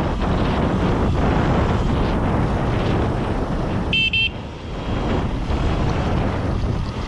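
Wind buffeting the microphone and tyres rolling over a loose gravel trail as an electric dirt bike rides along. About four seconds in, two short high beeps cut through.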